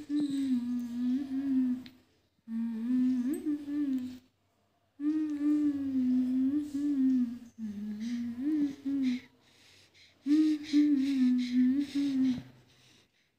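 A woman humming a slow lullaby tune with her mouth closed, in phrases of about two seconds broken by short pauses.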